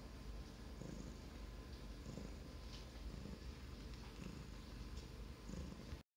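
Russian blue cat purring close up. The purr is faint and rises and falls about once a second with its breathing, then cuts off suddenly near the end.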